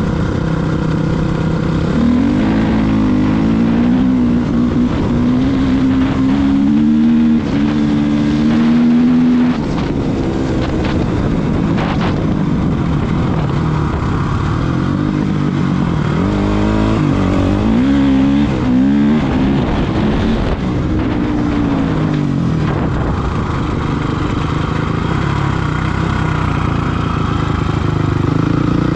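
Honda CRF450R's single-cylinder four-stroke engine under way, its note climbing and dropping in repeated pulls of the throttle through the gears, steadier in between and rising again at the end.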